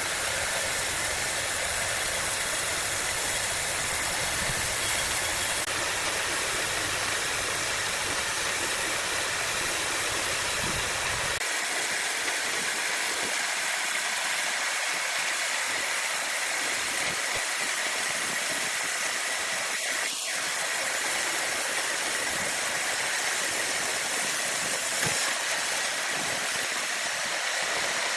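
Large wood saw running with a steady, even hiss-like machine noise; a low rumble under it drops away about eleven seconds in.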